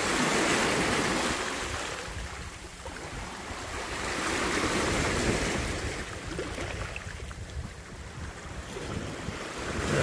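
Sea waves washing onto the shore in slow surges that swell and ebb twice, with a low rumble of wind on the microphone.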